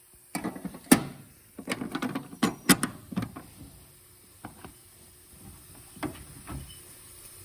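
Irregular clicks, knocks and rattles of hand work on the pickup cab's interior, busiest in the first three seconds and then thinning to a few faint clicks.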